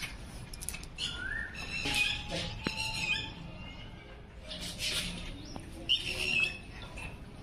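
German shepherd puppies whining and squeaking: short, high-pitched cries, several of them rising in pitch, repeated on and off.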